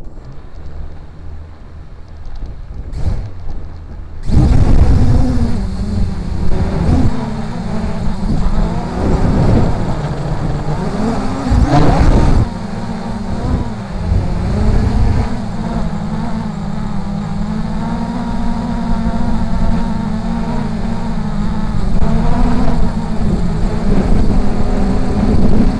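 Brushless motors and propellers of a Force 1 F100 Ghost (MJX Bugs 3) quadcopter: low at first, then about four seconds in a sudden jump to a loud drone as it spins up to lift off. The pitch wavers up and down with throttle, over a heavy rumble of wind buffeting the microphone.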